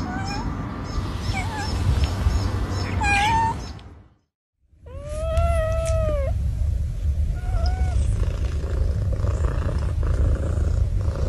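Cats meowing: a few short meows in the first three seconds, then after a brief break a long meow that rises and falls about five seconds in and a short one near eight seconds. A steady low rumble runs under the calls.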